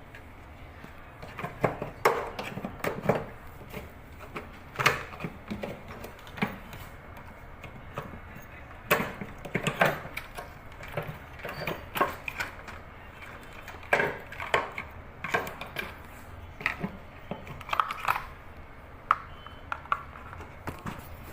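Irregular clicks, taps and knocks of microwave oven parts being handled and worked on by hand, coming in short clusters.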